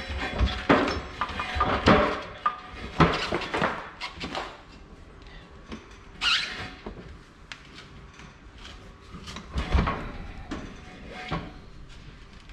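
Knocks and clunks of a heavy tire and bead-lock wheel being shifted and centred by hand in a hydraulic shop press, thickest in the first few seconds, with a brief scrape about six seconds in and a few more knocks near the end.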